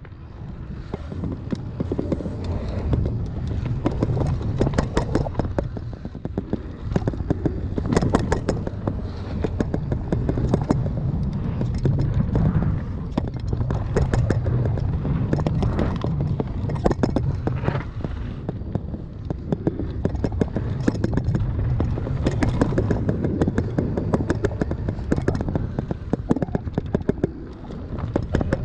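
Mountain bike riding fast down a dirt trail: wind buffeting the microphone as a steady low rumble, with tyres running over dirt and gravel and frequent rattles and knocks from the bike over bumps.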